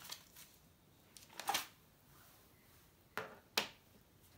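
Pen writing on paper: about six short scratchy strokes in three pairs, the louder ones about a second and a half and three and a half seconds in.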